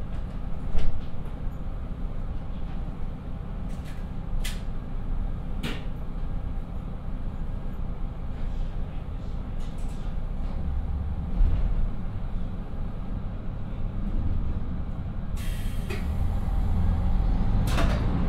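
The twin Niigata DMF13HS diesel engines of a KiHa 54 railcar idle as a steady low rumble, heard from inside the car, with a few sharp clicks. About ten seconds in, the engines rise and grow louder as the railcar pulls away from the stop. A short burst of air hiss comes a little later.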